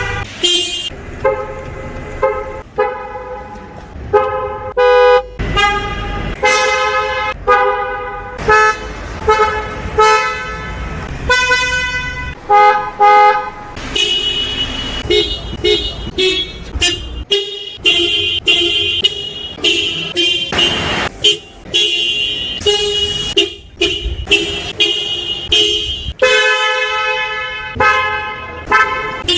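Car horns of many different cars sounded one after another: dozens of short honks and quick double and triple toots, each car's horn with its own pitch and tone.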